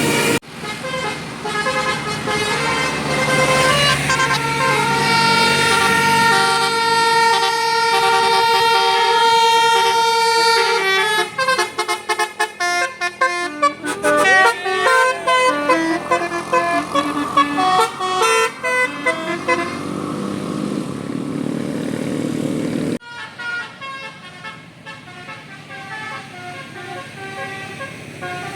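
Indonesian bus 'telolet basuri' multi-tone melody horn playing a tune, at first in long held notes and then in quicker, shorter notes. About 23 seconds in it cuts off suddenly, and a quieter horn tune follows.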